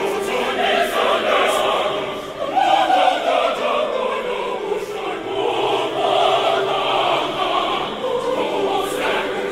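Large mixed choir of women's and men's voices singing together in harmony, swelling louder about two and a half seconds in.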